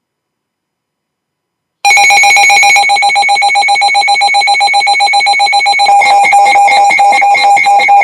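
Midland weather radio sounding its loud electronic alert alarm: a rapidly pulsing, high beeping tone that starts about two seconds in and turns choppier about four seconds later. The alarm signals that the radio has received a National Weather Service warning, here a winter storm warning.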